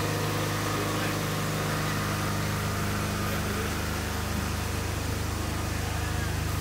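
A steady, low machine hum with a few even tones, unchanging throughout.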